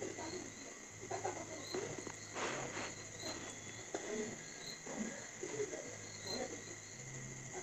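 Insects chirping in the background: a steady high-pitched trill with a faint pulse repeating about every three-quarters of a second. Soft, irregular sounds of fingers mixing rice on a plate come through faintly.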